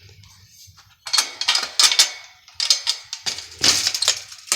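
A Rhode Island Red rooster pecking at basil leaves, making irregular sharp taps and rustles that start about a second in.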